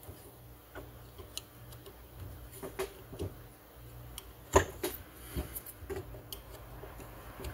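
Small, scattered metal clicks and ticks of a screwdriver driving the cover screws back into a Tillotson HL diaphragm carburetor, one sharper click about four and a half seconds in.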